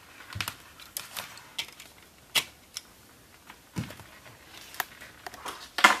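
Plastic AC power adapter being handled and plugged into a plug-in energy meter's socket: a scattering of sharp clicks and knocks, the loudest near the end.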